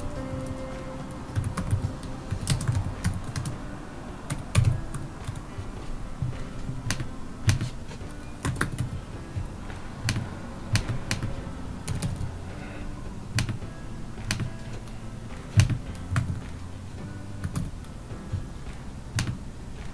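Typing on a computer keyboard: irregular runs of keystrokes with short pauses between words.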